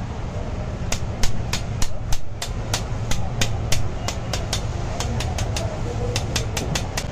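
A steel knife blade tapping against a wire grill basket of grilled fish: a quick, uneven run of sharp metallic clicks, about four a second, starting about a second in. A steady low hum runs underneath.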